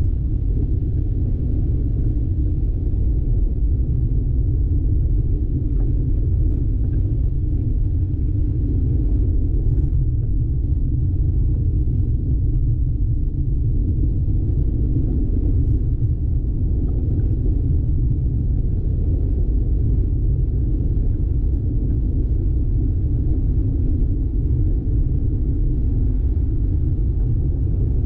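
Steady low rumble of a vehicle driving on a dirt road, tyre and engine noise with no changes.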